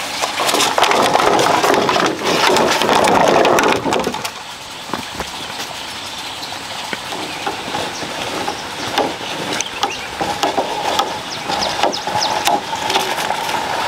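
Long bamboo poles dragged over bare dirt: a loud scraping rush for the first four seconds, then quieter scraping with scattered wooden knocks and clicks as the poles bump and shift.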